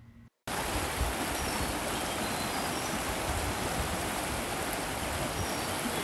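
Shallow rocky stream, water rushing steadily over stones; it starts suddenly after a brief silence near the start.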